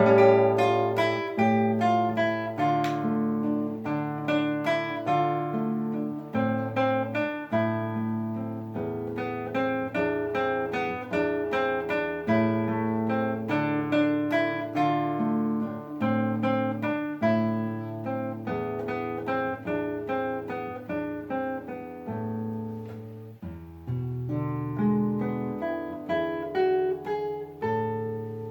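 Solo acoustic guitar playing a fingerpicked piece: plucked melody notes ring and decay over held bass notes. The last chord fades out at the very end.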